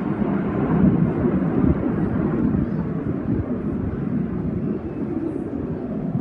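Aircraft flying past at an air show: a loud, steady low rumble, slightly stronger a second or two in.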